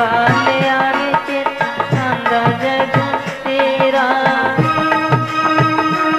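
Instrumental break in a Dogri devotional bhajan: a melody line over a steady hand-drum beat, with no singing.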